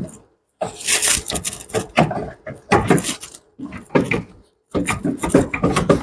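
A replacement alternator being worked by hand into its tight mounting spot in the engine bay: irregular bouts of scraping, rubbing and knocking as its metal housing catches on the brackets, hoses and engine parts around it.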